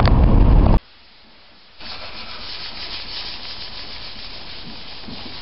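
A man rubbing down the Reliant Scimitar's glass-fibre body panels by hand, a steady scratchy sanding noise that starts about two seconds in. Before it comes under a second of loud low rumbling road noise inside a towed car, then a brief drop in level.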